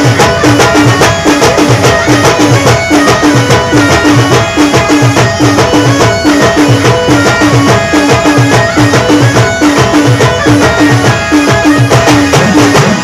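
Band playing Timli dance music: a fast, steady drum beat under a repeating melody.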